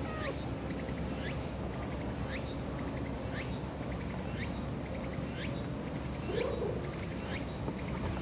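Short, falling chirps of a bird, repeated about once a second, over steady outdoor background noise.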